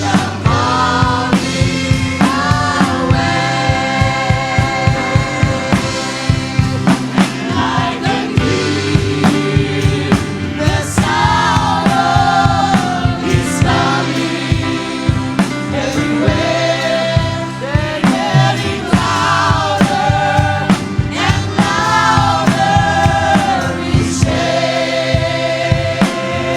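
Gospel song: voices singing a melody with vibrato over a band accompaniment with a steady drum beat.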